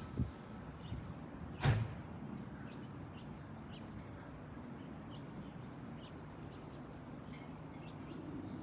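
Boeing 767-400ER jet passing overhead at a distance, heard as a steady low rumble that grows slightly near the end. A sharp knock comes about one and a half seconds in, and birds chirp faintly.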